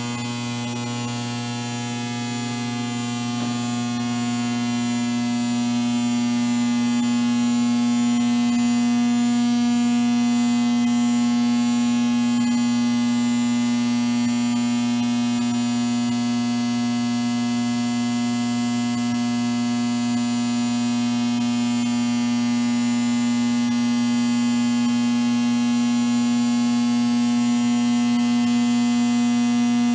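Steady electrical hum and buzz holding one pitch, with a hiss over it. It grows a little louder over the first several seconds, then holds even.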